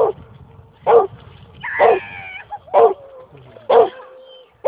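A dog barking over and over, about once a second, in a fetch game while it waits for its stick to be thrown.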